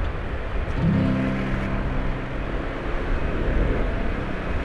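Traffic noise: vehicle engines running with steady road noise, and a nearby engine's low note that comes in about a second in and fades after a second or so.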